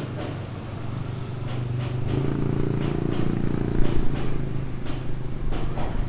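A motor vehicle engine running close by, swelling from about two seconds in and easing off toward the end, over a steady low hum, with light, evenly spaced ticks.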